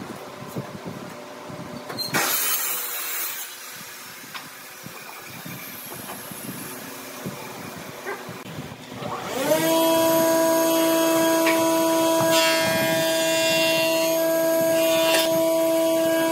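Light taps and scrapes of a steel rule and marker on timber, then about nine seconds in an electric power tool's motor spins up and runs steadily with a whining tone.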